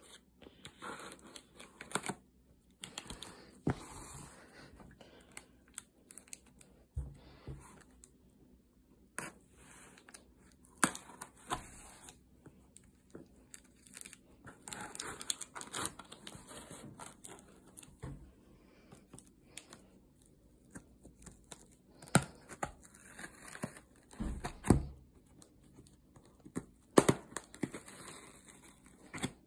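Scissors slitting the packing tape along the seams of a cardboard shipping box: irregular tearing and scraping of tape and cardboard, with scattered sharp clicks and knocks.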